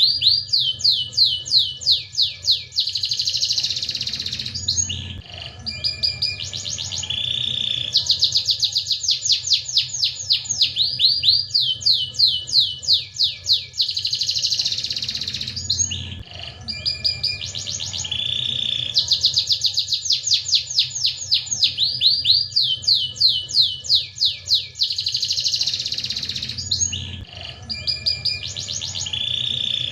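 Domestic canary singing nonstop: fast trills of quick down-sweeping notes alternating with buzzy rolling phrases, the same song sequence coming round about every eleven seconds. A steady low hum runs underneath.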